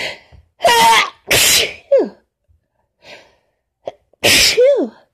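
A woman sneezing hard twice, about three seconds apart, each sneeze ending in a voiced cry that falls in pitch, with sharp catching breaths before them. The sneezes come from the tail end of a cold combined with allergies.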